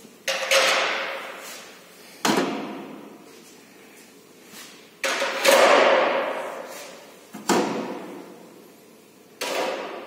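Knocks and clatters from refrigerator parts being handled and set down: about six sharp knocks, roughly two seconds apart, each dying away over a second or so, the loudest about halfway through.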